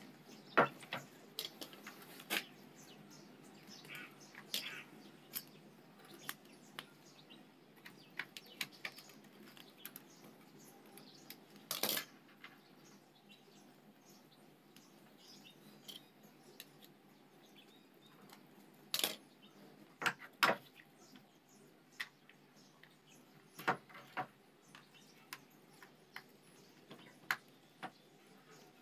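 Scattered small clicks and metallic taps of a screwdriver and parts being handled on a DeWalt angle grinder's housing while it is taken apart and put back together, with a few louder knocks midway and later. A faint steady hiss lies underneath.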